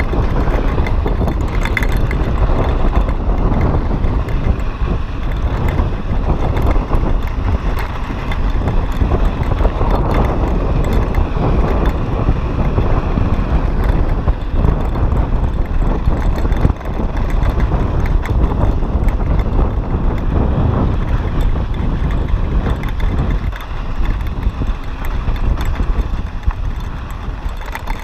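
Wind buffeting the microphone of a bike-mounted action camera, with mountain-bike tyres rolling over loose gravel and dirt on a fast descent and the bike rattling and ticking over the bumps. The noise eases a little near the end as the bike slows.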